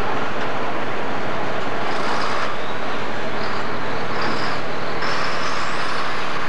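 Pro Stock pulling tractor's diesel engine running loud and steady while hooked to the sled, smoking hard, with a high whine that climbs near the end.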